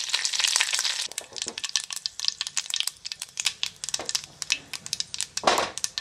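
Curry leaves, mustard seeds and cumin crackling in hot mustard oil as a tempering (tadka). A dense sizzle in the first second thins into scattered sharp pops and crackles. There is one louder thud near the end.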